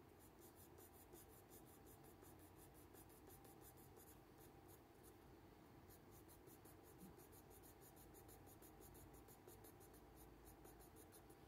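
Faint scratching of a coloured pencil on drawing paper: rapid, even short strokes as fur is shaded in.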